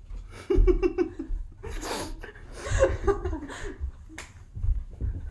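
Women laughing in short, breathy bursts, with a few low thumps as someone clambers in over the sofa.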